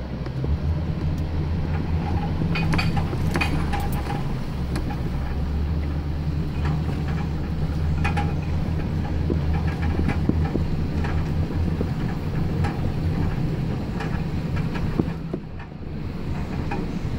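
Pickup truck engine running steadily while the truck wades through deep floodwater, with scattered short splashes and knocks over the low hum.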